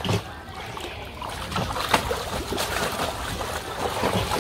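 Large pangas catfish thrashing in a water-filled, tarp-lined boat hold, the water splashing and sloshing in irregular bursts, with sharper splashes near the start and about two seconds in.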